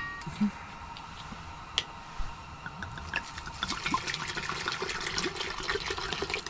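Red wine being poured from a bottle into a pot: a steady liquid pour with small splashes and ticks, getting fuller about halfway through.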